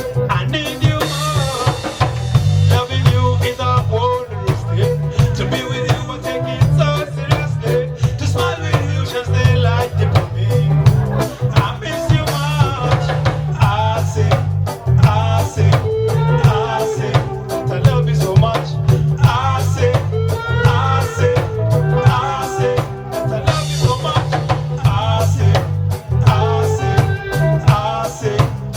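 Reggae band playing a lovers rock song: a heavy bass line, drum kit and guitar, with a sung lead vocal.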